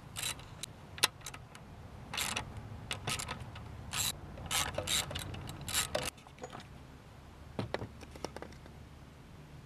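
A ratchet wrench undoing 10 mm bolts, in short bursts of clicking with metal tool clinks, busiest in the first six seconds and sparser after.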